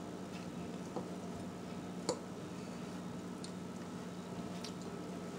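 A few faint, short clicks or taps, spaced about a second apart, over a steady low hum of room tone.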